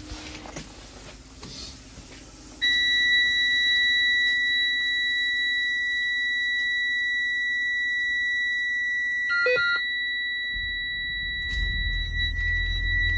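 School bus dashboard warning buzzer coming on with the ignition about two and a half seconds in and sounding as one steady high tone, with a few short, different beeps about nine and a half seconds in. About ten and a half seconds in the bus engine starts and runs as a low rumble under the still-sounding buzzer.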